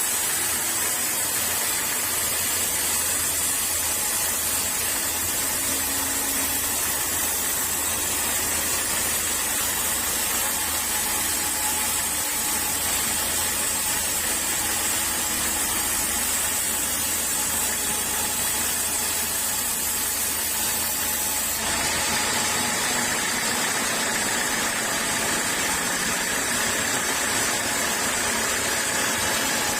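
Sawmill saw machinery running steadily with a loud, even noise and a low hum. About two-thirds of the way in the sound changes: the low hum drops out and the high hiss grows a little stronger.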